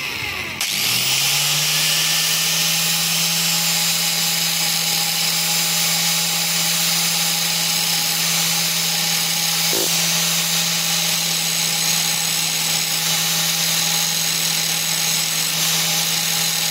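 Angle grinder spinning up, then grinding steadily against metal, taking the weld spots down flush on a magneto ignition flywheel's steel hub.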